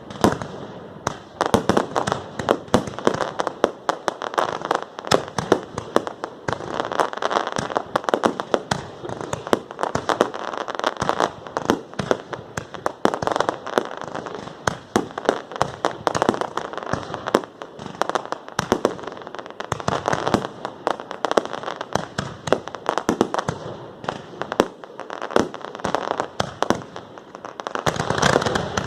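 Fireworks display: a dense, unbroken run of bangs and crackling reports, many per second.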